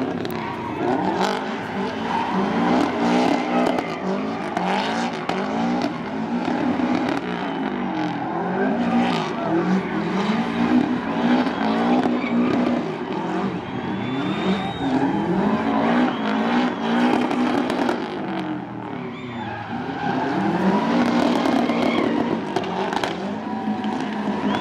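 Subaru WRX STI's turbocharged flat-four engine revving up and falling back again and again as the car drifts, with tyres squealing and skidding.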